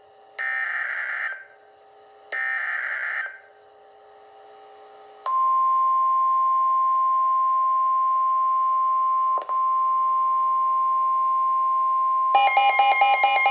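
Emergency Alert System signal: two short, buzzy digital data bursts of the header code, then a long steady single-pitch alert tone of about 1050 Hz, the NOAA Weather Radio warning alarm. Over the last second a fast-pulsing beep joins the tone.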